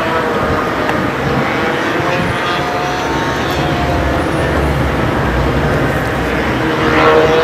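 Steady outdoor rumble and hiss of wind on the microphone, with a whining motor tone that wavers in pitch and swells briefly near the end.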